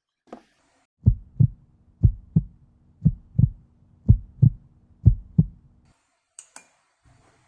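A heartbeat sound effect: five slow double thumps, lub-dub about once a second, over a low hum, cutting off suddenly near the end. It is followed by two quick sharp clicks.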